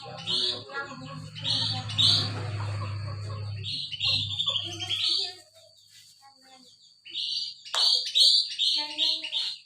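Pet sooty-headed bulbul (kutilang) singing in bursts of short, bubbly whistled notes, pausing for about a second and a half midway before starting another lively run.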